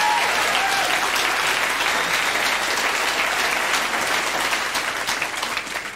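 Audience applauding with some laughter after a punchline; the clapping dies away near the end.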